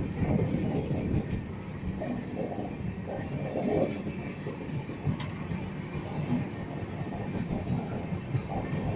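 Passenger express train running along the track, heard from on board: a steady low rumble with wheels clattering over the rails.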